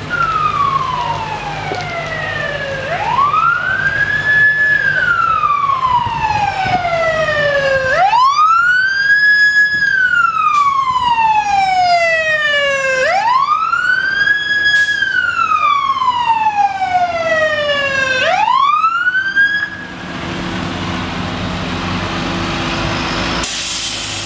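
Fire engine's siren wailing in slow cycles, each winding up quickly to a high pitch and then coasting down slowly, about one cycle every five seconds. It cuts off about 20 seconds in, leaving the truck's engine running and a short hiss near the end.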